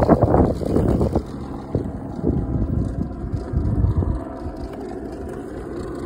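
Electric skateboard rolling on pavement: wheel and motor noise, with wind buffeting the microphone in the first second. It settles into a quieter steady rumble with a faint motor whine and drops further as the board slows.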